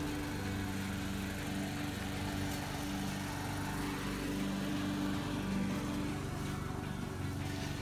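Walk-behind lawn mower's engine running steadily while mowing.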